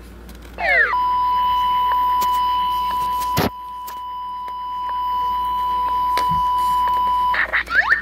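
Bop It toy's speaker in test mode: a quick falling swoop, then a steady beep tone held for about six seconds, interrupted once by a click, then more falling swoops near the end.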